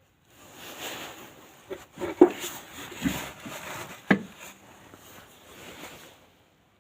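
Handling noise from car suspension parts being worked on by hand: rustling and scraping, with a few sharp knocks and clunks. The loudest comes about two seconds in, and two more follow about a second apart.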